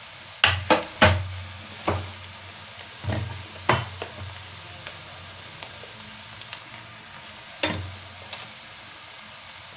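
Cabbage and potatoes frying in a steel kadai with a steady sizzle, broken by sharp metal knocks of a spoon against the pan as spices go in: several in the first four seconds and one more near the end.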